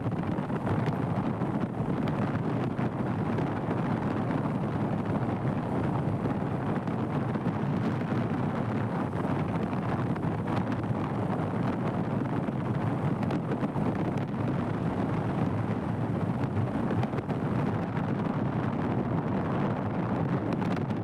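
Wind rushing over the microphone of a motorcycle on the move, with the bike's engine and road noise under it; a steady noise with no breaks.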